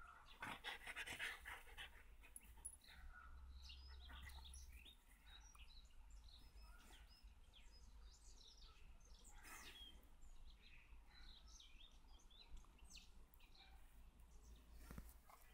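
A husky panting faintly, with scattered soft short sounds and a low steady rumble underneath.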